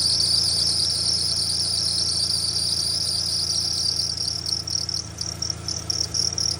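Fox-body Mustang's accessory belt squealing: a loud, high-pitched steady squeal over the running engine's low hum, breaking into quick repeated chirps about four seconds in. This is the belt slipping because of a bad tensioner.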